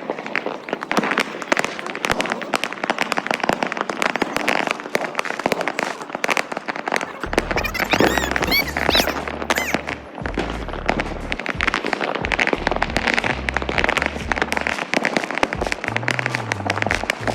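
Fireworks and firecrackers going off in a dense, continuous crackle of rapid pops, with a few rising whistles about eight seconds in. Music with a deep bass line comes in about seven seconds in.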